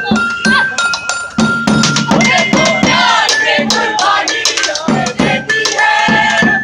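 Live music from a harmonium holding steady notes under sharp drum strokes, with a group of voices singing over it from about two seconds in.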